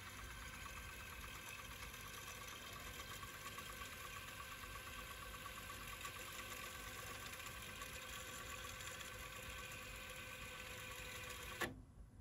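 Pioneer CT-3070R cassette deck's tape transport fast-winding the cassette with a steady whir, stopping with a mechanical clunk near the end.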